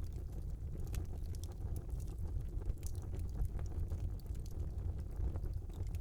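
Wood fire burning in a small fireplace: a steady low rumble of flames with scattered, irregular crackles and small pops.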